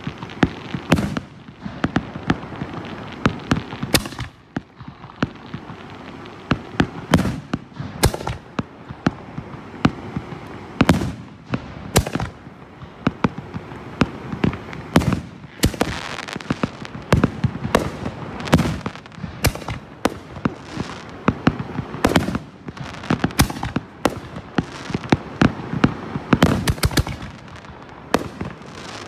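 A 36-shot 3-inch firework cake firing its aerial shells. Loud bangs and cracks come at irregular intervals, about one to two a second, over a steady background din.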